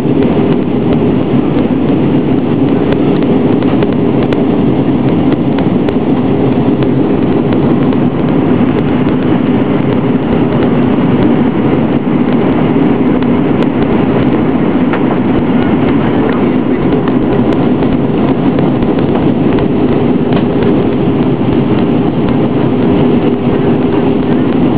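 Steady drone of a jet airliner's cabin in flight: engine and airflow noise heard from a window seat over the wing, with a constant low hum running under it.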